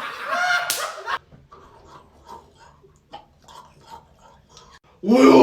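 A person making a made-up vocal noise in answer to a pulled face: a short, high voice sound that bends in pitch, a pause of faint small sounds, then a loud, drawn-out voice sound near the end.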